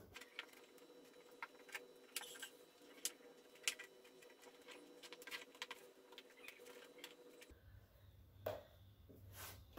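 Faint, scattered clicks and light taps from hands handling the back of a wooden picture frame and its hardboard backing.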